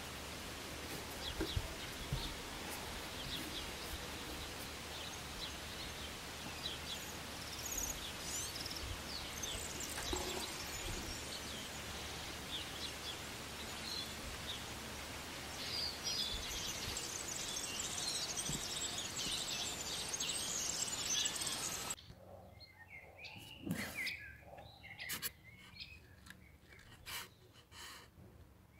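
Outdoor background hiss with birds chirping here and there. About three-quarters of the way through, the hiss drops away abruptly, leaving faint clicks and a few chirps.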